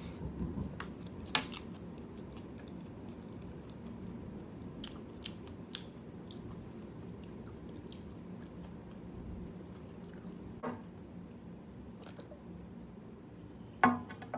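Close-miked chewing of jjajangmyeon black bean noodles, with scattered wet mouth clicks, over a steady hiss of rain in the background. One sharper, louder click near the end.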